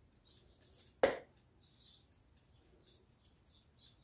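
Dried oregano being poured from a glass spice jar and sprinkled by hand: mostly very quiet, with one sharp knock about a second in as the glass jar meets the stone countertop.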